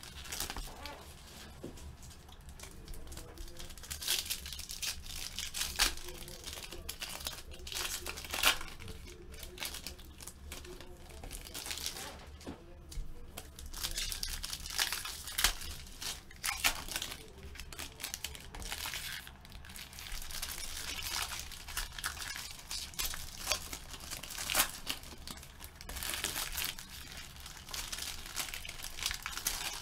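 Plastic and foil wrappers on trading-card boxes and packs crinkling and tearing as they are opened, in an irregular run of crackles and rips.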